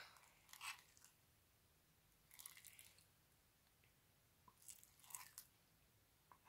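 Faint squelching of thick glitter-glue slime as a spoon stirs and scrapes it in a bowl, in three short bursts a couple of seconds apart.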